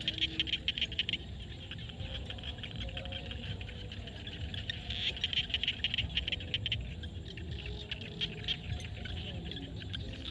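A chorus of frogs calling in a field: dense trains of rapid clicking pulses that swell near the start and again about halfway through, over a low steady background.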